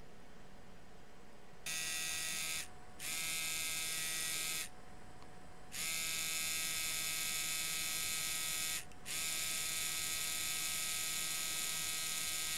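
Pen-style permanent-makeup tattoo machine running with a steady electric buzz. It starts about two seconds in and cuts out three times: twice very briefly and once for about a second. Its owner judges from this sound that the machine's power is weak.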